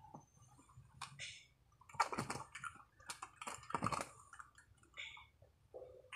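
Close handling noises: scattered small clicks, rustles and scrapes of hands working with fishing gear, with the busiest, loudest stretches about two and four seconds in.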